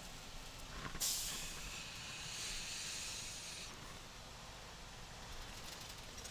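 A sudden hiss of released compressed air from the Volvo semi truck's air system starts about a second in, lasts a couple of seconds and fades. The truck's low running and road noise carry on underneath.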